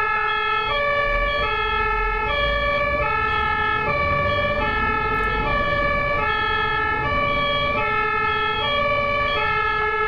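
German two-tone ambulance siren (Martinshorn), switching steadily back and forth between a low and a high note, each held for about three-quarters of a second. A low rumble of traffic runs beneath it.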